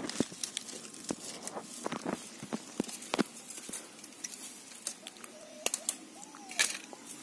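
Thin wire being twisted by hand around crossed bamboo slats to bind them, with pliers near the end: a run of small irregular clicks, taps and scrapes.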